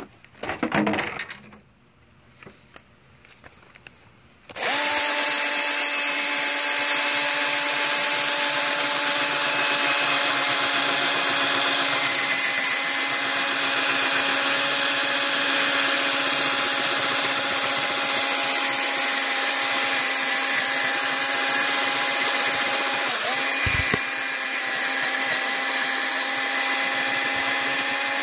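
A few handling clicks, then a handheld power tool starts about four and a half seconds in and runs at a steady, even pitch while cleaning the inside of a rusty steel flywheel. Its pitch dips briefly once, about three-quarters of the way through.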